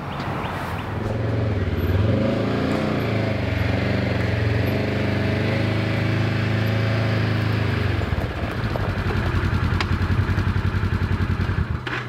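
Polaris 900 Crew side-by-side's engine running steadily as it drives, then about eight seconds in dropping to an evenly pulsing idle.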